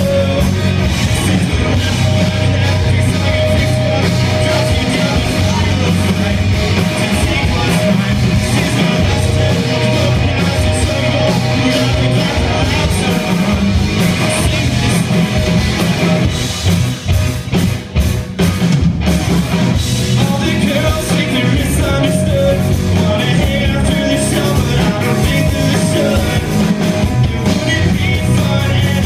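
Live rock band playing loud. The full band sound runs on dense and steady, with a short break in the playing a little past halfway before it comes back in.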